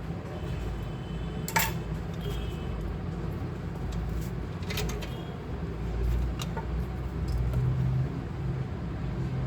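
Three sharp, light clicks of small hard objects being handled, the first the loudest, over a steady low rumble.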